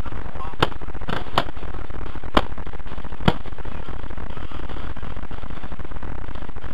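Paintball marker shots: five sharp pops at uneven spacing over about three and a half seconds, over a steady electrical buzz from the helmet camera's microphone.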